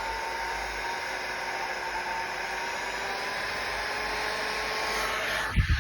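Bosch electric heat gun running: a steady rush of blown air with a faint motor whine, the sound of the gun working normally. A couple of low knocks near the end.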